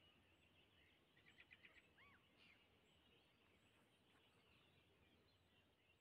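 Faint, distant songbirds twittering. About a second in comes a quick run of about six short notes, followed at about two seconds by a single arched call.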